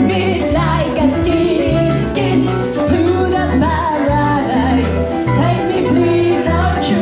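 Live salsa band playing, with a lead voice singing over a bass line and steady Latin percussion.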